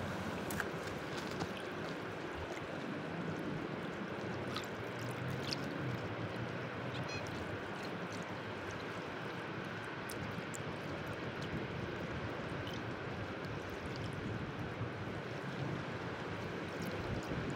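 Small waves lapping and washing against the shore close to the microphone: a steady wash with scattered small splashes and drips, over a low rumble.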